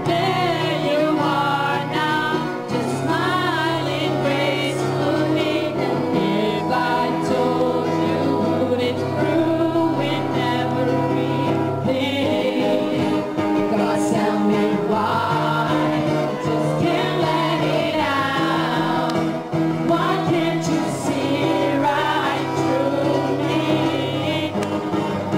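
A song performed by several voices singing together in harmony over sustained low bass notes.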